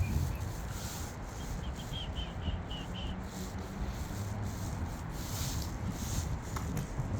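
Steady low rumbling noise, with a quick run of about seven short high chirps between one and a half and three seconds in.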